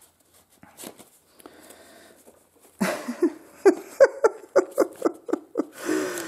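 Copper wire spiral being twisted through the punched holes of a paper book block. There is faint rustling and clicking at first, then a run of short squeaks, several a second, as the coil jams and is forced on through the holes.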